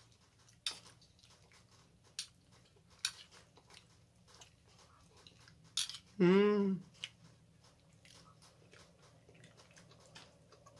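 A metal spoon clicking against a plate a few times, sharp single clicks a second or so apart, while someone eats; about six seconds in, a short hummed 'mmm' that rises and falls, then faint chewing.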